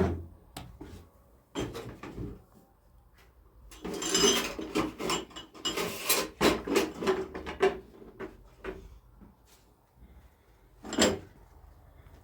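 Irregular knocks, clatter and rustling of objects being handled, busiest in the middle, with a single sharp knock near the end.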